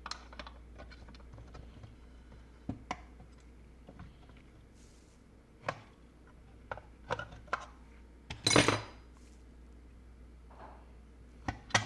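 Scattered small metal clicks and clinks of hand tools and parts being handled on a workbench while a threaded antenna connector is fitted and tightened, with a louder clattering rattle about eight and a half seconds in.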